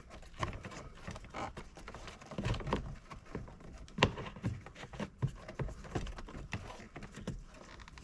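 Hands working the headlight switch and plastic dashboard parts loose: scattered clicks, knocks and rustling, with one sharp knock about four seconds in.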